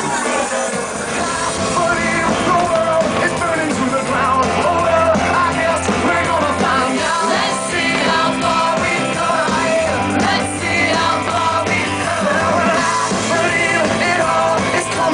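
Loud pop-rock song with a sung vocal and a steady beat.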